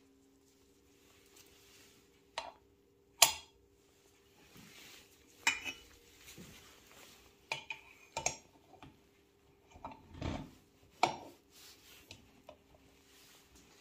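Metal parts clinking and knocking on a metal workbench as a crankshaft and bearing are handled and set into an aluminium scooter crankcase half: about seven separate hits, a sharp clink about three seconds in the loudest, with a duller thump around ten seconds. A faint steady hum runs underneath.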